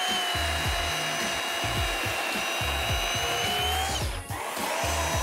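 Worx WG384E 40V brushless cordless chainsaw running and cutting into a log, its electric motor a steady high whine. About four seconds in it rises briefly and cuts out, then starts again half a second later. Background music with a steady beat plays underneath.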